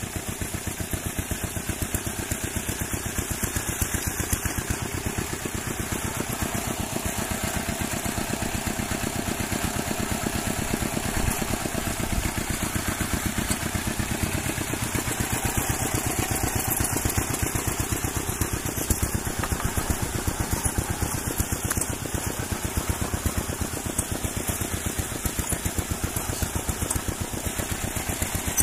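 An engine running steadily at idle, a rapid, even pulsing that holds unchanged throughout.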